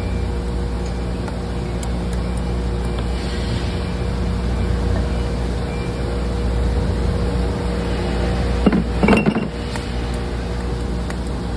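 Steady low machine hum in the background. About nine seconds in comes a brief cluster of metal clinks and knocks as a wire hook and an aluminum casting are handled in a tub of paint stripper.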